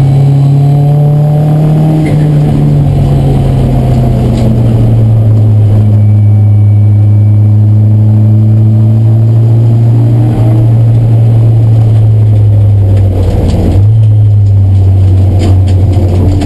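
Race car's engine heard from inside the cabin, running steadily with its pitch sagging slowly, then dropping lower about fourteen seconds in.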